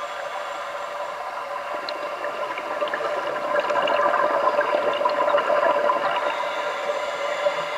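Underwater sound of a scuba diver's exhaled bubbles from the regulator, swelling about three and a half seconds in and easing near the end, over a steady hum.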